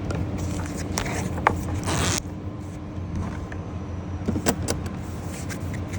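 Sharp clicks and knocks of insulated hand tools, Allen wrenches among them, being handled and set down, with a brief rustle about two seconds in. A steady low hum runs underneath.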